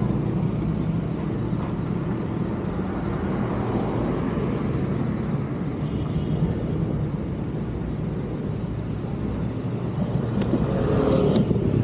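Steady city traffic and road noise with a low rumble, heard from a moving bicycle. It swells louder near the end, with a sharp click.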